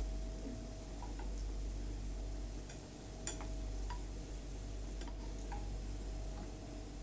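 Bread vada balls deep-frying in oil with a soft sizzle, with occasional light clicks of a utensil against the pan and one sharper click about three seconds in.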